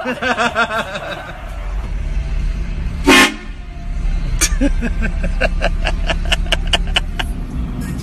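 A vehicle-mounted train horn gives one short, very loud blast about three seconds in, over the low rumble of the vehicle's engine, then a rapid run of short toots, about three or four a second. Just before the blast, people are shrieking and laughing from a previous scare.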